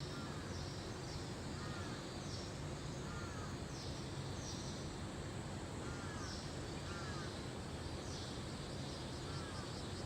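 Birds calling outdoors: short arched calls every second or two and repeated higher chirps, over a steady low rumble.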